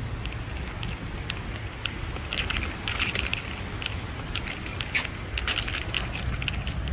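Footsteps in sneakers on wet pavement and sidewalk: scattered scuffing clicks, thickening into two denser spells a few seconds apart, over a steady low rumble.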